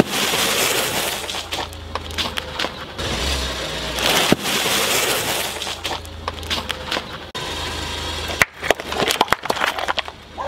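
A car tyre crushing a plastic bag of puffed corn snacks, which crackles and bursts. Then comes a run of sharp cracks and pops as plastic yogurt cups are crushed under the tyre, over a low car-engine hum.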